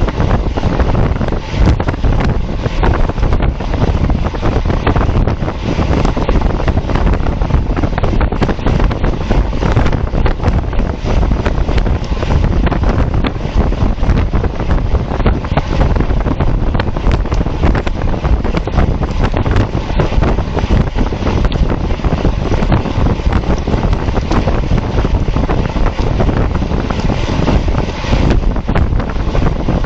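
Loud, steady wind noise buffeting the microphone of a cyclist's camera while riding at race speed.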